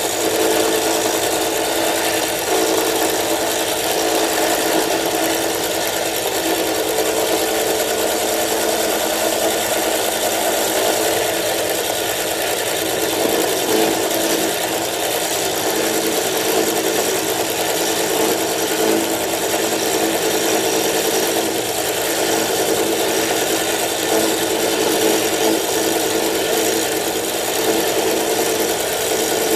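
Manual milling machine running steadily, its cutter milling the lock relief into a frame lock knife's lock bar.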